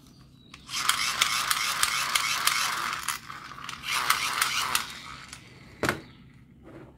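Small plastic toy gun's trigger mechanism ratcheting: a rasping run of rapid clicks, about five a second, lasting a couple of seconds, then a shorter second run. A single sharp click follows near the end.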